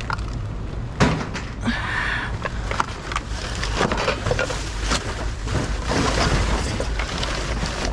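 Rummaging through junk in a dumpster: items knocking and clattering, with a sharp knock about a second in and a brief scrape just after, over a steady low hum.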